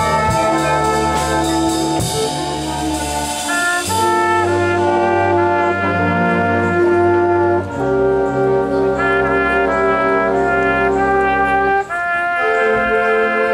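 Concert band of brass and woodwinds, with tubas, French horns, saxophones and clarinets, playing music in held chords over a low tuba bass line. The chords change every couple of seconds.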